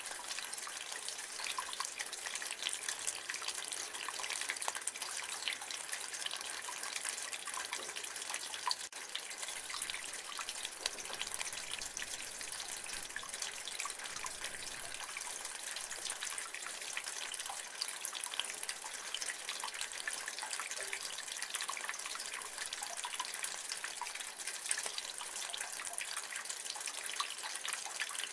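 Rain water running and splashing from a roof gutter, a steady patter and trickle with many small drips.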